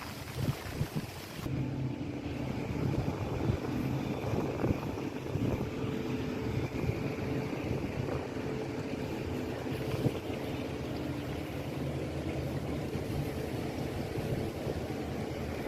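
A steady engine hum over rumbling noise, starting after an abrupt change about a second and a half in.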